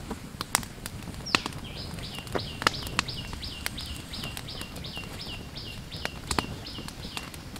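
Wood fire crackling with sharp, irregular pops under an iron griddle. From about a second and a half in until near the end, a bird calls in a fast, even series of short falling chirps, about three a second.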